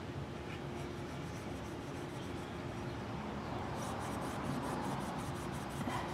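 Steel wool scrubbing the steel spokes of a 1978 Suzuki GS550 wheel, rubbing off corrosion in quick back-and-forth strokes, about four or five a second, which grow stronger about four seconds in.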